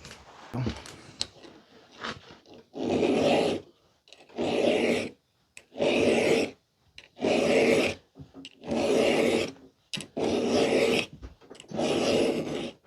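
Hand file stroking across a chainsaw chain's cutter teeth in seven even rasping strokes, about one every second and a half: sharpening a chain whose teeth are nicked.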